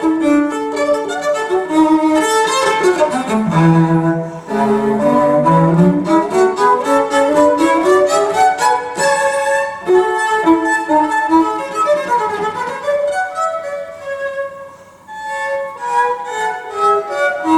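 Recorded cello music played back through Wilson Benesch Resolution loudspeakers, bowed notes moving in rising and falling runs, with a brief quieter moment about fifteen seconds in.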